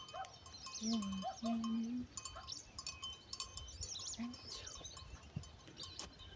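Farm animal calls: two short, steady calls about a second in and a brief third near four seconds, over birds chirping throughout.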